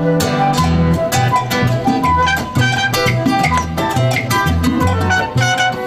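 Live Latin band playing a salsa tune: flute and trumpet melody over congas and guitar, with a steady repeating bass line.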